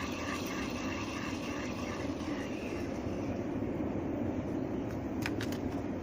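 Steady rumble of a jet aircraft near the airport, swelling slightly in the second half.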